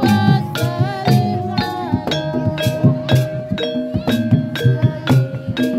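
Jaranan (kuda lumping) accompaniment music playing: steady drum strokes, about two to three a second, under a melodic line with held and gliding pitches.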